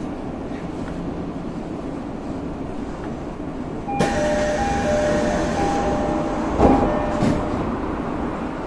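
Tokyo Metro 13000 series commuter train running, heard from inside the car. About halfway through the running noise suddenly gets louder and brighter, with on-and-off steady tones and a short thump near the end.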